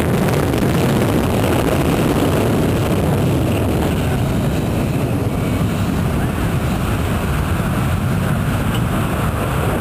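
Jet airliner with two rear-mounted engines at full takeoff thrust, a loud steady roar heard from behind as it accelerates away down the runway, easing slightly in the second half.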